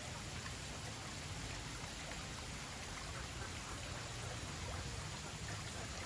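Steady outdoor ambient noise: a faint even hiss with scattered soft ticks.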